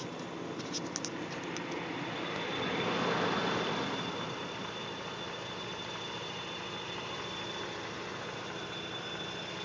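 Mazda RX-8 with its rotary engine running at idle, under a thin steady high-pitched whine: the weird noise heard near the ECU. A few light clicks sound in the first second or so, and the noise swells briefly about three seconds in.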